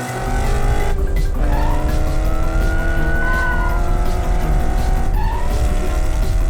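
Cartoon race-car sound effect: an engine revving with its pitch climbing and dropping back twice, with tyre squeals, over background music.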